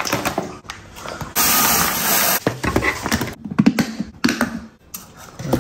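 Raw rice grains pouring from a cut plastic bag into a plastic storage box, a steady hiss lasting about a second. Scattered plastic crinkles and clicks come before it, and a run of knocks and clicks of plastic container parts follows.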